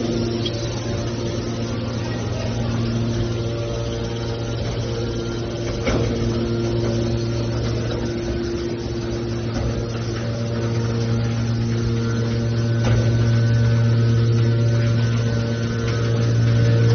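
Hydraulic scrap metal baler running with a steady low machine hum, with a sharp knock about six seconds in and a lighter one later on.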